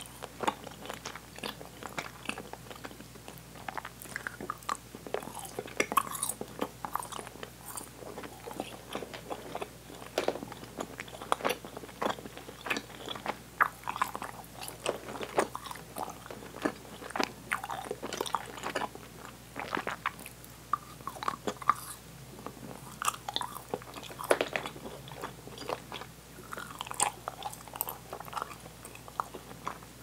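Close-miked open-mouth chewing of sticky, chewy Swedish candy: an irregular, unbroken stream of wet smacks and clicks as the candy pulls away from the teeth.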